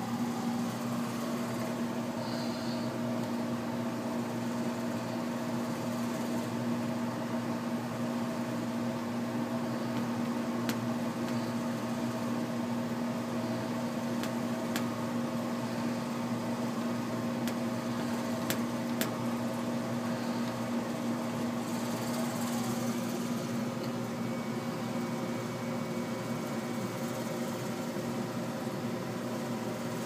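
Geothermal heat pump running under refrigerant charge: a steady mechanical hum with a strong even tone, a few faint clicks, and a brief faint hiss about two-thirds of the way through.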